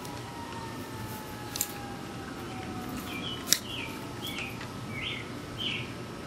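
Lineman pliers snipping through steel welded-wire tails: two sharp clicks about two seconds apart, the second louder. A bird chirps five short notes through the second half.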